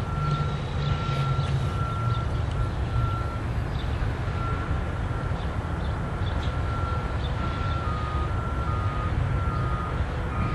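Repeated electronic beeping tone, joined about three-quarters of the way through by a second, slightly lower beep alternating with it, over a steady low rumble: grade-crossing warning bells sounding for an approaching train.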